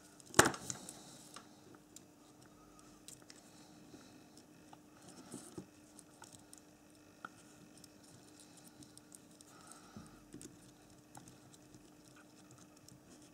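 Small clicks and ticks of a metal tool and tiny metal linkage rods being handled on a plastic H0 model locomotive chassis. One sharp click about half a second in is the loudest; after it come scattered faint ticks over a faint steady hum.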